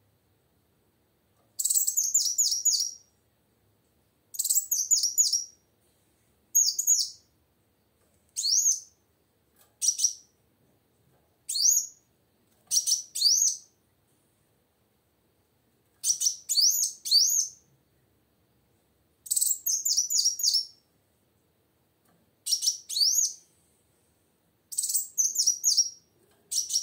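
Female kolibri wulung (a sunbird) singing vigorously: about ten short bursts of high, rapid twittering notes with quick upward sweeps, each phrase about a second long, separated by pauses of a second or two.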